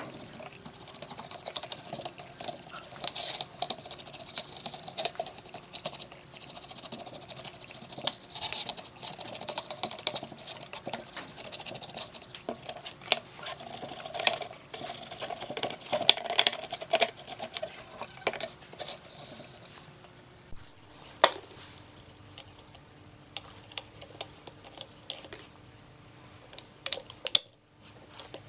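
A bristle brush scrubbing an amplifier circuit board, a rapid scratchy rustle with many small clicks. The scrubbing stops about twenty seconds in, followed by a few light clicks and taps.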